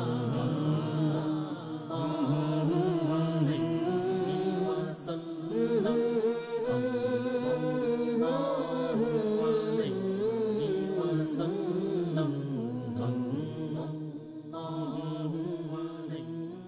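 Closing theme music of chant-like sung vocals, the long held notes sliding in pitch, fading out near the end.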